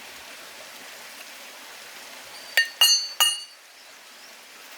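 A metal spoon clinking three times against a cooking pot, sharp ringing taps a little past the middle, over a faint steady hiss.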